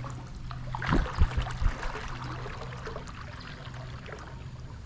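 A kayak being paddled in to land on a shallow creek, with water splashing and trickling around the hull and a few dull low knocks about a second in.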